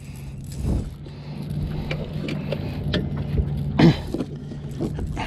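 Boat motor running steadily at low speed, with scattered knocks and clicks and one brief louder sound nearly four seconds in.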